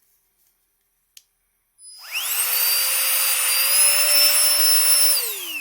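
Nitecore BB Nano electric air blower spinning up with a rising whine and a rush of air about two seconds in, running steadily for about three seconds, then spinning down with a falling whine near the end. A single small click comes just before it.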